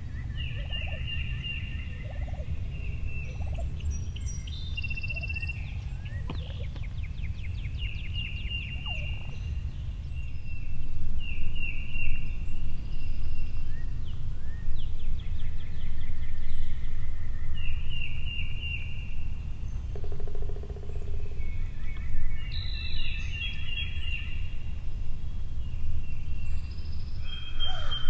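Wild turkeys gobbling again and again, each gobble a quick rattling run of notes, over a steady low rumble.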